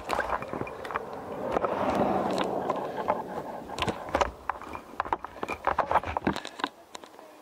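Irregular crunching and scraping of footsteps on packed snow, with rustling from a handheld camera.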